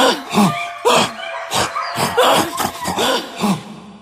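A man's voice making a rapid series of short, breathy, wordless outbursts, each falling in pitch, laughter-like or sob-like cries, with a faint steady tone underneath that fades near the end.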